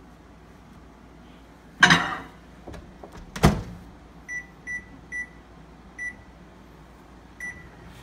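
Microwave oven being loaded and started: a clatter as the bowl goes in about two seconds in, and the door shutting with a sharp bang a second and a half later. Five short, high keypad beeps follow as the time is entered, and the oven's hum starts at the very end.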